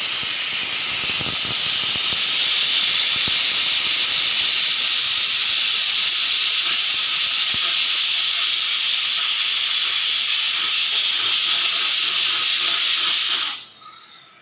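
Pressure cooker whistle blowing: a loud, steady hiss of steam escaping past the lifted weight valve, the sign that the cooker has reached full pressure. It lasts about thirteen seconds and cuts off abruptly near the end as the valve reseats.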